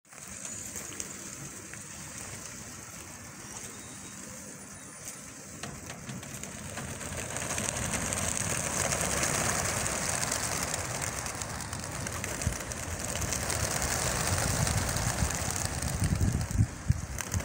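Wingbeats of a large flock of young racing pigeons taking off together as they are released from a transport truck's crates. They make a dense rushing flutter that builds up from about six seconds in.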